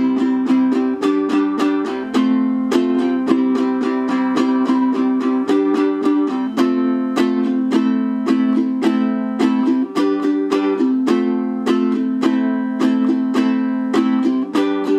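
Low-G ukulele strummed in a quick, steady rhythm, cycling through the A minor, G and F chords of a verse with a chord change every couple of seconds.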